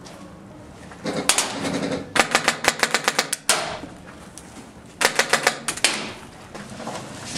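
Airsoft guns firing on full auto: three quick runs of sharp clicking shots, each about a second long, starting about a second in, at two seconds, and about five seconds in.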